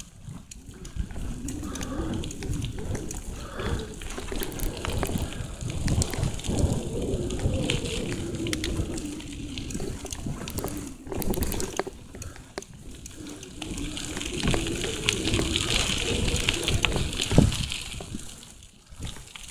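Bicycle ridden over a sandy, gravelly forest track: tyres rumbling and crunching, with the bike rattling over bumps. The noise dips briefly near the end.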